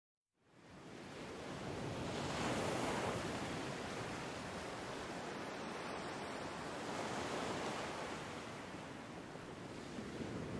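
A steady rushing noise like ocean surf, fading in over the first second and swelling a couple of seconds in.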